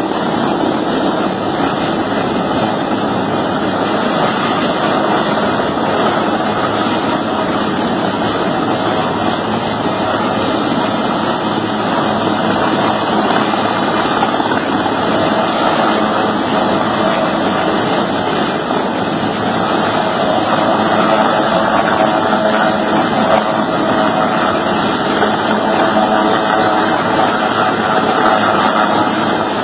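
Helicopter engine and rotor running steadily and loudly throughout.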